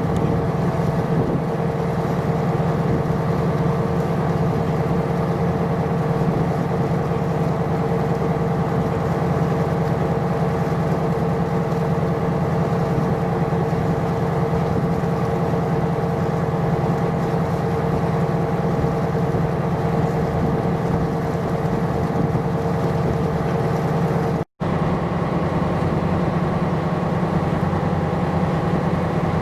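Tanker's engine and machinery running with a steady drone and a constant hum, broken by a brief dropout about 24 seconds in.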